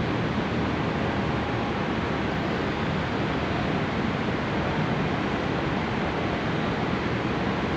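A ferry's machinery and ventilation making a steady, even rushing drone across its enclosed car deck.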